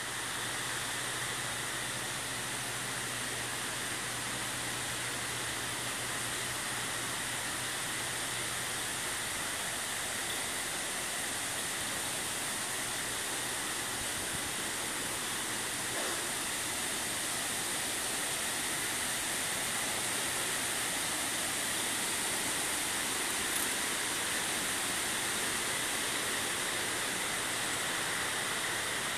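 A steady, even hiss of outdoor ambience, strongest in the high pitches and unchanging throughout, with a faint low hum under it for the first half.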